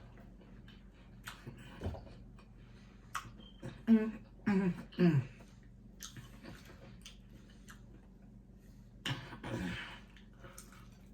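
Quiet eating and food-handling sounds: scattered small clicks and moist mouth noises, a few short hums about four to five seconds in, and a louder rustle about nine seconds in.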